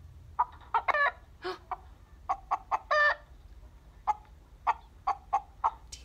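Chicken clucking: a run of short, sharp clucks, with longer drawn-out calls about a second in and again about three seconds in.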